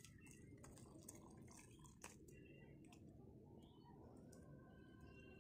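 Near silence: egg curry being poured from a kadhai into a steel plate, with faint wet slops and a few light clicks.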